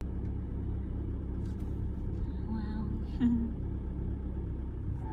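Car driving slowly, its engine and road noise a steady low rumble heard from inside the cabin.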